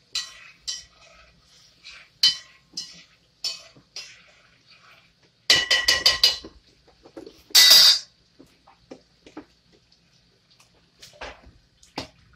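A metal spoon clinking and scraping against a stainless steel pot while the sofrito and tomato sauce base is stirred. There are scattered ringing clinks, then a quick run of clinks about five and a half seconds in and a short loud rasp around eight seconds.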